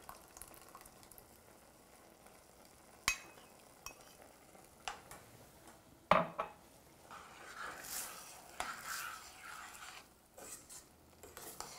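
Metal spoon scraping açaí pulp from a ceramic bowl into a stainless steel pot, then stirring risotto in the pot: a few sharp clicks of metal on metal, the loudest about six seconds in, followed by repeated scraping swishes with a faint sizzle from the cooking rice.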